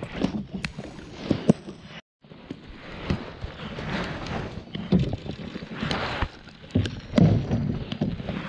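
Paddling a Tucktec folding kayak toward shore: paddle strokes splash and knock against the plastic hull, with scattered sharp knocks. The loudest knocks come about five and seven seconds in, and the sound drops out briefly about two seconds in.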